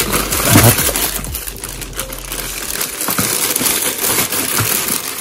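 Packaging crinkling and rustling as the soundbar's bundled cables are handled and unwrapped, with small clicks and taps among the rustle; it eases off near the end.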